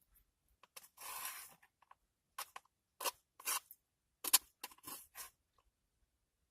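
Utensil scraping and clicking against a takeout container of fried rice: one longer scrape about a second in, then a string of short scrapes and clicks that stops about five seconds in.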